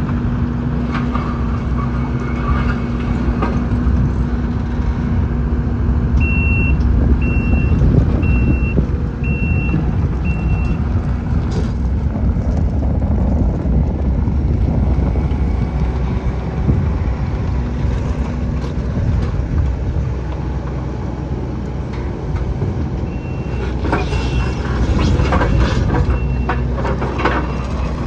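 A heavy vehicle's engine running steadily while its backup alarm beeps about once a second, in two runs of several beeps, as the machine reverses. Knocks and clanks of metal come through near the end.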